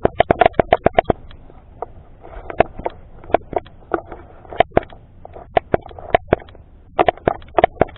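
Sharp clicks from repeated presses of an action camera's zoom button, fast at first (about ten a second), stopping about a second in, then scattered single presses and handling of the camera.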